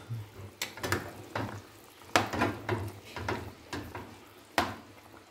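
A dozen or so light, irregular clinks and knocks of cookware at the stove, around a pot of chicken soup that has just been uncovered.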